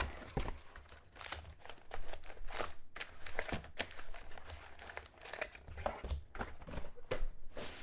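A trading card box being handled and the foil wrapper of the card pack inside crinkled and torn open by hand: a run of irregular crackling rustles.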